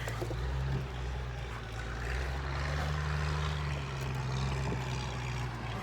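Vehicle engine running with a low, steady hum that rises slightly in pitch midway, then cuts off abruptly at the end.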